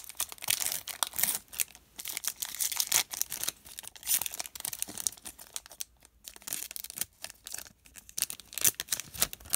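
Foil wrapper of a Topps Chrome baseball card pack being torn open and crinkled as the cards are pulled out and handled: a run of irregular crackling rustles with a few short pauses.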